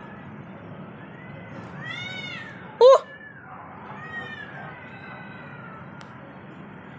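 Cats yowling at each other in a standoff: drawn-out, wavering calls that rise and fall in pitch. About three seconds in comes one short, much louder, warbling screech.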